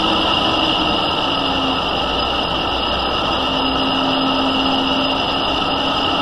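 Smithy lathe running with its spindle at about 640 RPM and not yet cutting: a steady mechanical hum with a constant high whine. A low tone joins about halfway through.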